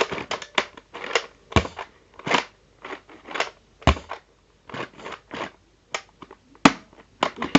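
Plastic clicks and clacks of a Nerf Rough Cut 2x4 blaster being handled and worked, about two a second at an uneven pace. The sharpest clack comes about two-thirds of the way in.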